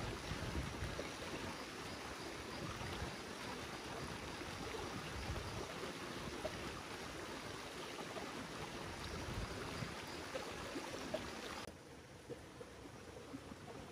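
Steady rushing of running stream water, a noisy haze without a pitch, which drops suddenly in level about twelve seconds in.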